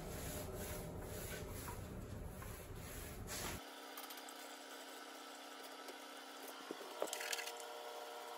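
A small paint roller rubbing back and forth over a concrete countertop as a coat of sealer is rolled on, in repeated soft strokes. About three and a half seconds in, the sound cuts to a quieter stretch with a faint steady hum and a few light clicks.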